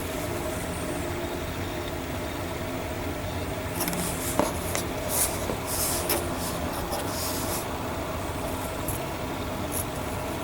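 Steady background hum, with a few seconds of short, crisp rustling and rubbing sounds starting about four seconds in, like hands moving kit parts in a plastic bag.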